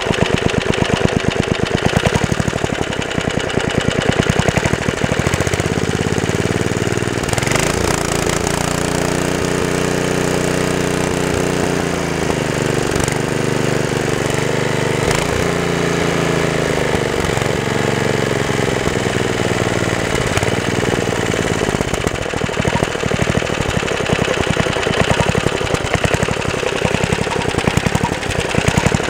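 Small gasoline engine running with distinct firing beats. About seven seconds in it speeds up into a smoother, higher note, holds, then winds back down to a lumpy idle at about twenty seconds.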